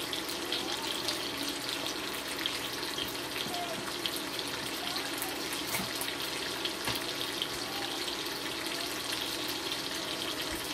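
Bacon sizzling steadily in a frying pan, with a dense, fine crackle of popping fat.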